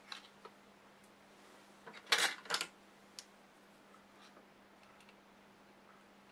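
Small hand tools handled on a workbench: a few light clicks near the start, then two short scraping sounds about two seconds in, followed by a single click. A faint steady hum runs underneath.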